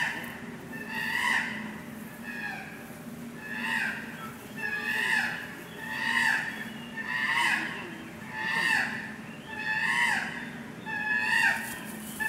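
A chimpanzee calling over and over, a high call about once a second, each one rising and then falling in pitch, over a steady low hum.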